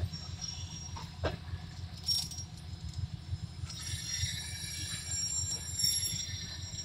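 Russian Railways passenger coaches rolling slowly past on the track: a steady low rumble with a few sharp clanks early on. A high metallic squeal sets in about halfway through.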